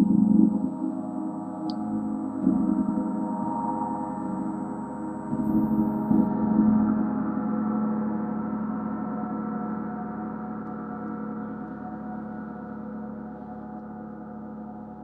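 Planetary gong tuned to Mercury, struck softly three times in the first six seconds and then left to ring, its many overtones shimmering and slowly fading.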